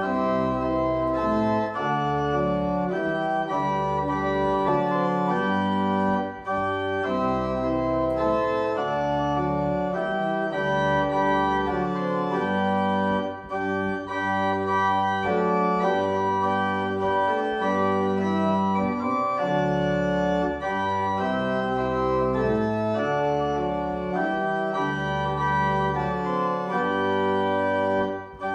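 Organ playing a slow piece of sustained chords, with brief pauses between phrases.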